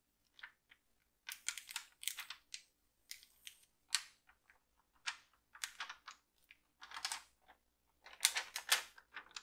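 Sticky rhinestone transfer tape being peeled slowly off a flock template, lifting the hotfix rhinestones: irregular crackles and small clicks.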